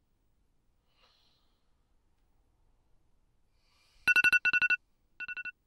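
Near silence, then about four seconds in a phone rings loudly with a rapid electronic trilling ring in quick bursts, a shorter, quieter burst following near the end.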